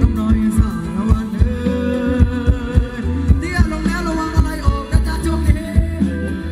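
Live band playing Thai ramwong dance music, with a steady drum beat and a singer's voice.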